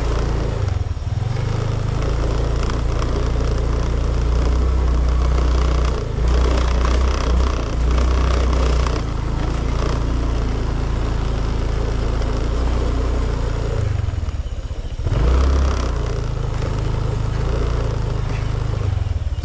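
Motorcycle engine running at low speed, its note dropping briefly several times and picking up again as the throttle is eased and reopened, with scraping and rattling from the ride over a rough, slippery track.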